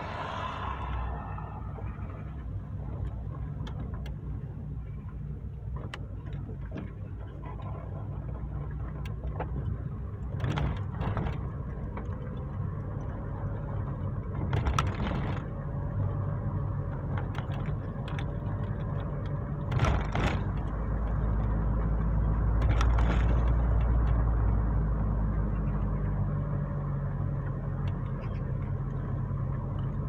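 Car engine and tyre noise heard from inside the cabin while driving, a steady low rumble that swells for a few seconds about two-thirds of the way through, with a few brief knocks or rattles along the way.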